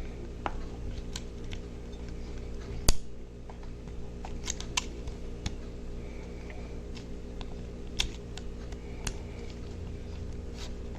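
Small irregular clicks and taps of a flat-tip screwdriver prying at a windshield piece wedged in a die-cast toy bus, with one sharp louder click about three seconds in. The piece stays stuck in its tight fit.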